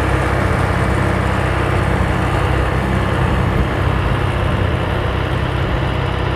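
Mahindra 4540 tractor's diesel engine running steadily as the tractor drives.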